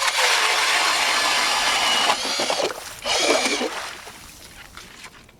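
Power ice auger drilling a hole through lake ice: a steady whir that stops about two seconds in, followed by two shorter bursts before it dies down.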